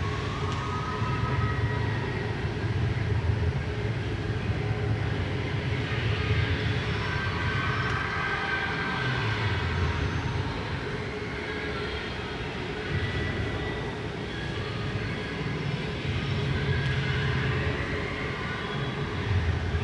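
Loud, distorted arena din: a heavy low rumble that swells and eases every few seconds, under a mid-range haze of crowd noise and the cheer routine's music over the public-address speakers.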